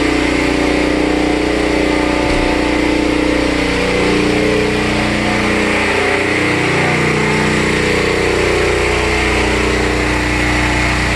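Caterpillar RP8000E portable gasoline generator running steadily under load while powering a 3.5-ton central air conditioner.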